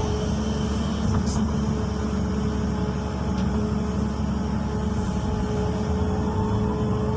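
XCMG 215C excavator's diesel engine and hydraulics running steadily under digging load, heard from inside the cab: a low drone with a steady whine over it.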